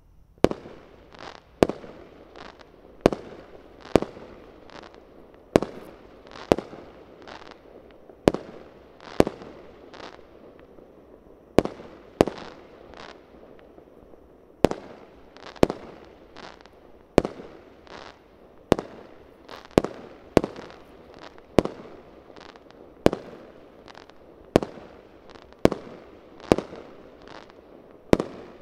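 Aerial fireworks bursting in a rapid series of sharp bangs, roughly one a second, each trailing off in an echo.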